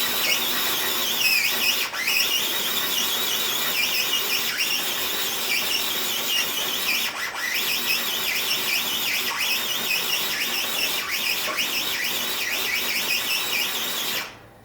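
Traxxas TRX-4 High Trail crawler's electric motor and gearing whining under load as it strains to drag a weighted pull sled, the pitch wavering up and down. The whine cuts off suddenly near the end.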